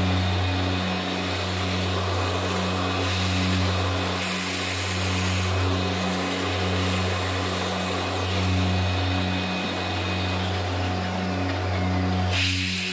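Milling machine cutting a lost-wax cast steel crosshead: a steady motor hum under continuous cutting noise. A sharp hiss sets in near the end.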